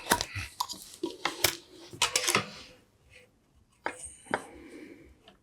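Small metal tools and parts being handled on a workbench: a run of sharp clicks and clatters, with a short quiet pause a little past the middle.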